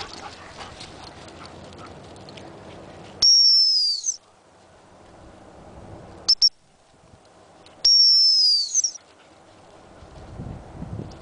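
Dog-training whistle blown in a pattern: a long blast about three seconds in, two quick short pips near the middle, then another long blast about eight seconds in, each long blast dropping slightly in pitch as it ends. The long blasts are the stop whistle that halts the dog.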